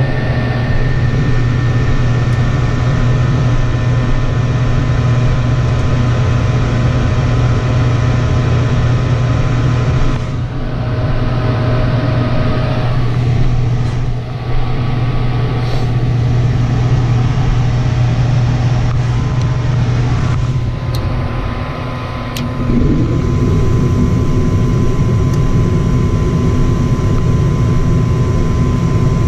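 Lennox ML193 gas furnace running with a loud, steady motor hum and a few steady tones. About twenty-two seconds in, after a brief dip, the sound changes and grows fuller.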